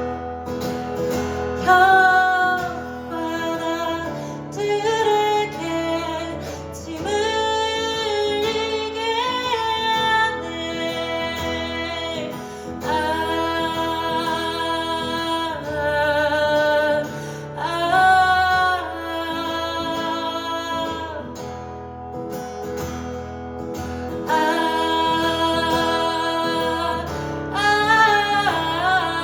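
A woman singing a melody over acoustic guitar, holding some notes with a slight waver in pitch.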